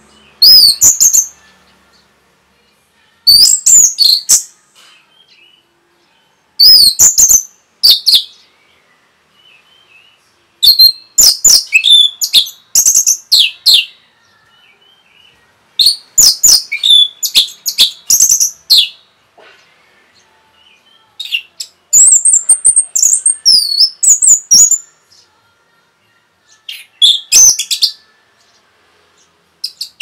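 Orange-headed thrush (anis merah) singing loud, fast, high-pitched warbled phrases. The song comes in about seven bursts of one to three seconds each, with short pauses between them.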